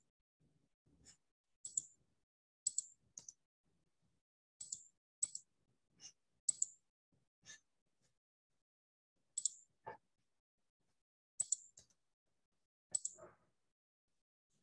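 Faint computer mouse clicks at irregular intervals, several in quick pairs like double-clicks, as the screen share is set up again.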